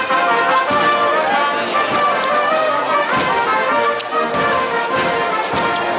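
Brass marching band playing a tune on the move, trumpets and trombones sounding together, with low drum thumps underneath.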